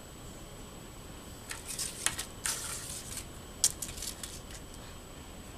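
Small plastic clicks and rustles as a doll's plastic fairy wings are handled against a wooden tabletop. They come in a few short scratchy bursts, mostly between about one and a half and four and a half seconds in.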